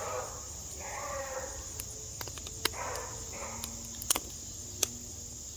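Crickets trilling steadily, with a few sharp pops from popcorn kernels bursting in a bag in the campfire, two of them close together.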